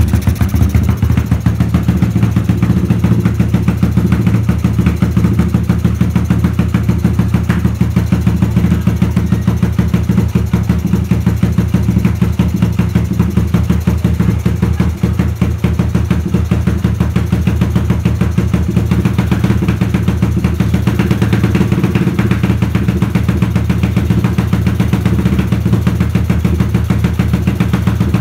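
Suzuki GD110's single-cylinder four-stroke engine idling steadily on a freshly fitted Mikuni PWK 28mm flatslide carburetor, while the carburetor's air screw is being adjusted.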